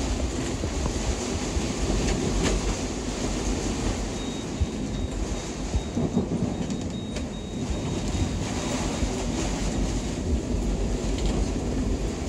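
Tornado-force storm wind buffeting a sailboat, heard from inside the cabin as a dense, steady low rumble, with a few sharp knocks about two and seven seconds in.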